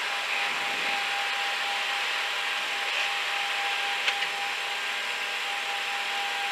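Steady cockpit noise of a Cessna Citation Encore climbing out just after takeoff: an even rushing hiss from its Pratt & Whitney Canada PW535 turbofans and the airflow, with a thin steady whine running through it. A single sharp click about four seconds in.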